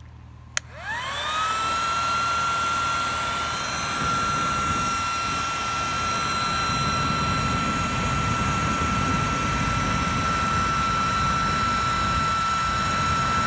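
Electric air-mattress pump switched on with a click, its motor whining up to speed within about a second and then running steadily with a high whine and rushing air as it blows air into a wet-wood campfire.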